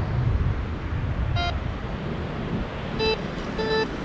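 White's MX7 metal detector giving short target-tone beeps as the coil sweeps over a buried target that it reads as a penny. There is one higher beep about a second and a half in, then two lower, slightly longer beeps near the end, over a steady low rush of wind and surf.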